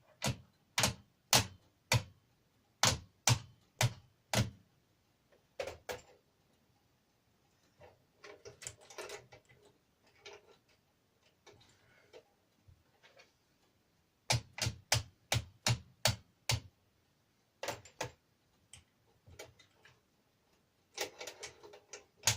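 Hammer knocking a pin through on a ZB37 machine gun: runs of sharp, evenly spaced strikes, about two to three a second, in the first four seconds and again about two-thirds through, with softer handling and scraping in between.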